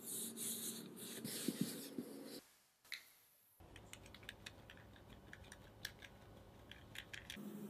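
Disposable plastic gloves rustling and crinkling as hands fold soft dough over a filling, then, after a brief pause, a run of faint, light ticks and taps while cocoa powder is dusted over the buns.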